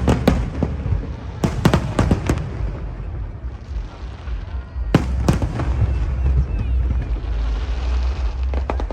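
Aerial fireworks bursting overhead as sharp bangs: a quick cluster about one and a half seconds in and two more hard bangs about five seconds in. A steady low rumble runs under them throughout.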